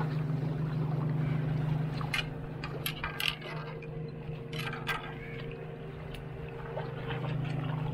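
Water sloshing against shore rocks over a steady low motor drone, with a few sharp clicks and taps in the middle.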